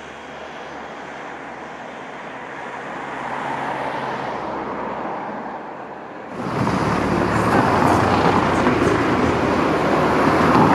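Soft, steady outdoor noise that swells slightly, then an abrupt cut about six seconds in to louder town-street traffic, with a car driving by.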